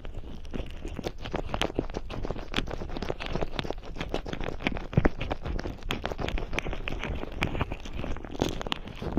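Fingers massaging cream and oil over a microphone's ear, heard very close: a dense, irregular run of wet crackles and rubbing.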